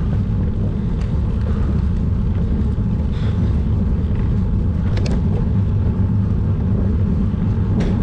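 Steady, low wind rumble on the microphone of a GoPro on a road bicycle riding at about 17 to 22 km/h. Two short clicks come about five seconds in and near the end.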